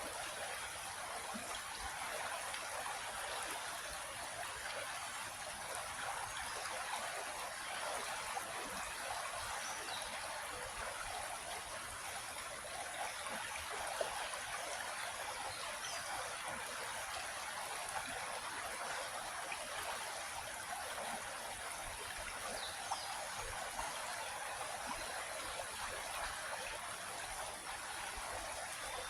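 Small creek flowing steadily over rocks, a continuous rushing and trickling of water, with a few faint bird chirps.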